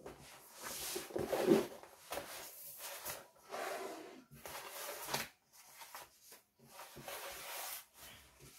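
Plastic-covered diamond-painting canvas being unrolled and smoothed flat by hand on a tabletop: irregular rustling rubs.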